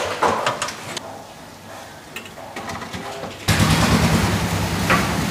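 A few light metal clinks and knocks from a steel hook being worked among suckling pigs hanging in a brick pit oven. About three and a half seconds in, a loud steady low hum with a fast even pulse starts suddenly.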